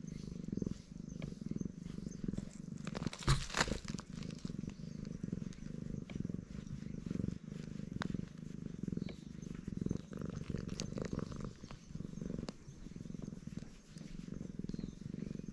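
Black cat purring loudly and continuously while being stroked on the cheek and chin, a low rumble in steady pulses. A brief louder noise about three seconds in.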